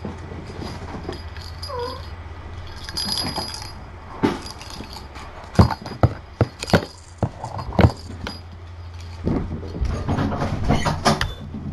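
Kittens scampering and wrestling on a carpeted floor: from about four seconds in, a run of irregular thumps and knocks. A steady low hum runs underneath.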